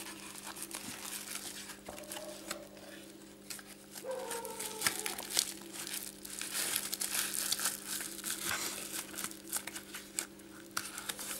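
Packaging crinkling and crackling as a tested LG G2 LCD screen is packed back into it, with many small crackles throughout.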